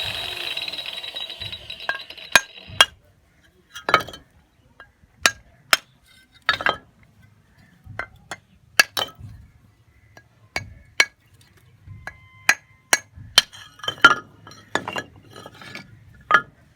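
A steady mechanical whir with a high whine dies away about three seconds in, followed by irregular sharp clinks and taps of hard objects striking each other, some two dozen spread unevenly.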